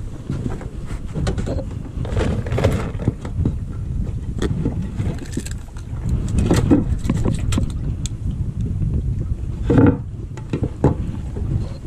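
Wind rumbling on the microphone aboard a small boat, with scattered knocks and handling noises from gear and the deck, the loudest knock about ten seconds in.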